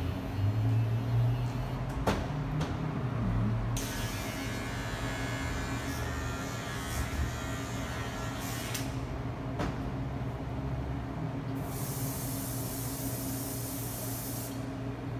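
Electric hair clippers buzzing steadily, with a few sharp clicks. Near the end, a spray bottle hisses over the hair for about three seconds.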